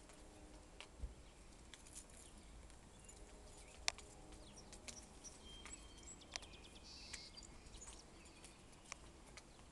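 Near silence with a faint low rumble, broken by scattered sharp clicks and ticks, the loudest about four seconds in, and a few faint, brief high chirps in the middle.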